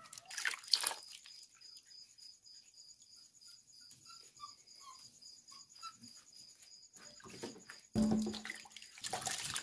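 Water splashing as sweet potatoes are scrubbed by hand in a basin, then a sudden knock about eight seconds in as a potato goes into a pot, with more splashing after it.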